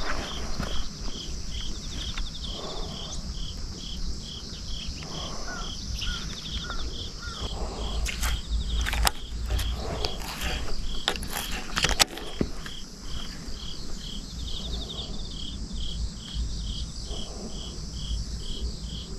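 Insects chirping in a steady rhythm, about two to three high pulses a second, over a low rumble. A few sharp clicks come in the middle.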